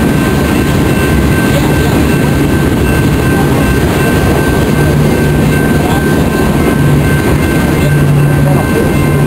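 Freight train of tank cars and covered hopper cars rolling past close by: a loud, steady rumble of wheels on rail with a few thin, steady high tones above it.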